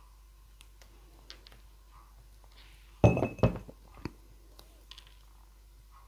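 A plastic glue bottle set upside down into a glass jar: a short clatter of knocks with a brief glassy ring about three seconds in, then one more knock. Small clicks of paper being handled around it.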